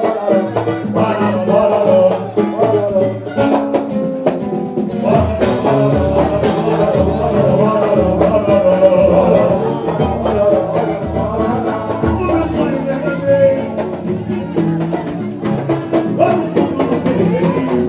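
Samba group playing: singing over drums and percussion, with a strong bass pulse coming in about five seconds in.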